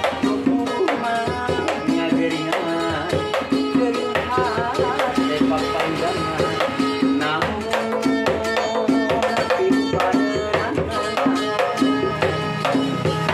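Street busking duo playing: a man sings a wavering melody over a strummed ukulele, with a djembe hand drum beaten in a steady rhythm.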